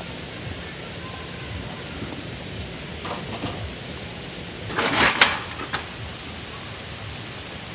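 Camping gear being handled on gravel: a few soft rustles, then a short cluster of sharp clattering knocks about five seconds in and one click just after, over a steady outdoor hiss.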